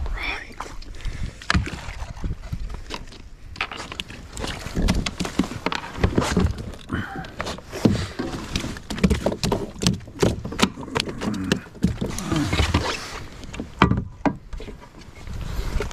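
A hooked bass splashing at the side of a kayak, then irregular knocks, clicks and rattles as the fish is landed and handled among the kayak's gear.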